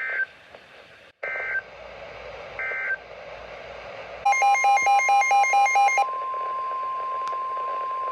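Emergency Alert System tones on NOAA Weather Radio: three short bursts of warbling SAME digital data code, then a rapid electronic beeping for about two seconds, laid over the steady 1050 Hz weather-radio warning alarm tone that starts about four seconds in.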